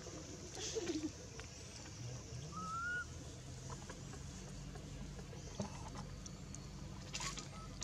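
Faint outdoor background with a bird giving one short rising whistle about two and a half seconds in. A couple of light clicks, one about a second in and one near the end.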